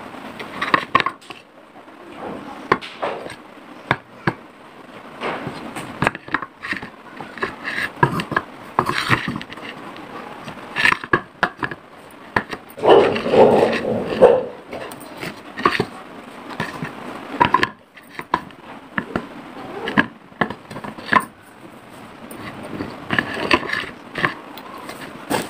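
Small white clay cups (kulhads) being handled on a plate: irregular taps, clicks and short scrapes of clay against the plate and fingers, with a longer, louder scrape about thirteen seconds in.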